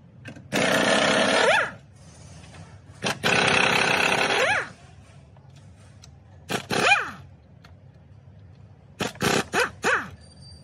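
Cordless impact wrench running a socket on the engine mount bracket's nuts. It gives two steady bursts of about a second each, a short burst midway, and then a quick series of short trigger pulls near the end.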